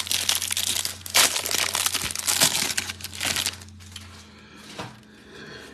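A 2022 Topps baseball card hanger box being torn open, its plastic wrapping crinkling loudly for about three and a half seconds. It then falls to quieter handling with a few faint clicks.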